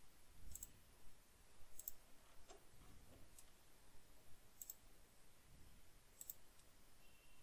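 Four faint computer mouse clicks, each a quick double tick of button press and release, spaced one to three seconds apart over quiet room tone.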